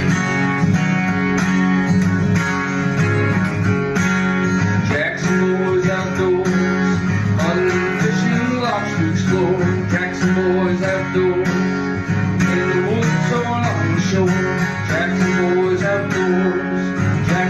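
Background music led by a plucked and strummed acoustic guitar, with a steady rhythm.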